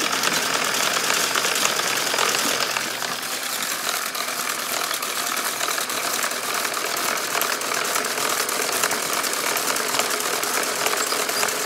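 Small Lego electric motors and their gear trains whirring steadily as they drive a toy car wash's spinning brushes and conveyor. The brush strips flap rapidly against the passing toy.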